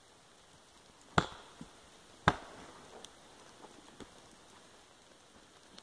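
Two sharp knocks on the wood about a second apart, followed by a few faint ticks, as the cut round of old-growth fir is being worked loose from the log.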